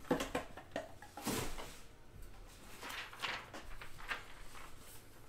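A few short knocks, crinkles and scrapes of trading-card packs and boxes being handled. The loudest come right at the start and about a second and a quarter in.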